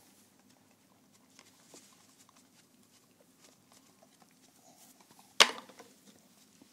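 A dog licking yogurt out of a paper carton, faint wet clicking and lapping, broken about five seconds in by a single loud knock.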